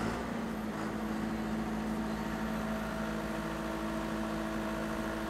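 A generator set's diesel engine running steadily just after start-up, its pitch settling at the very start and then holding even as it comes up to speed.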